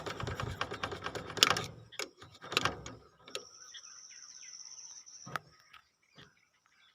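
Scraping and small clicks of hands working on a motor starter's contact pins, rubbing them clean. This is followed by a few sharp clicks, with a steady high-pitched tone in the background for about two seconds in the middle.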